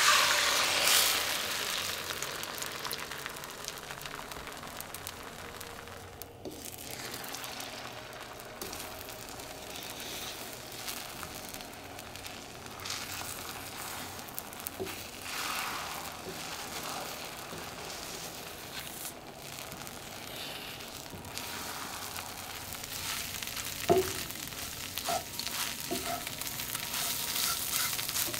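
Beaten eggs sizzling in hot oil in a skillet over medium-high heat, loudest at the start as they are poured in, then frying steadily as they are stirred with a wooden spatula. A few short knocks and scrapes of the spatula against the pan come near the end.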